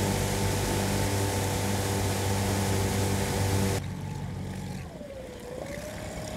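Outboard motor of a small aluminium boat running steadily under way, dropping away suddenly about four seconds in. A quieter wavering whine follows near the end.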